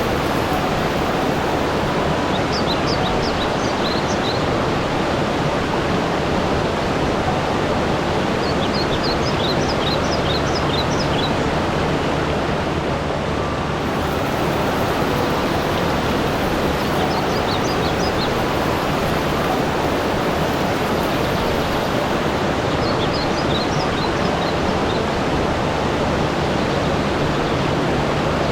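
Steady rushing water, a continuous noise like a stream or waterfall. Over it a small bird sings four short, high, quick chirping phrases, about seven seconds apart.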